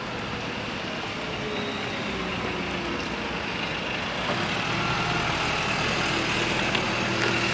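Articulated city bus driving past on the street, a steady engine hum with road noise that grows louder in the second half.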